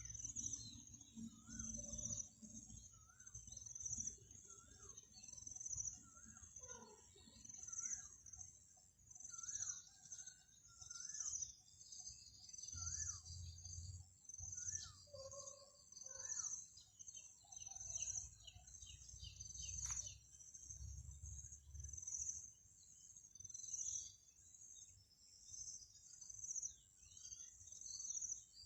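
Faint outdoor birdsong: short chirps and calls from small birds, repeating through the first two-thirds. Under them, insects chirp in a steady high-pitched rhythm about twice a second.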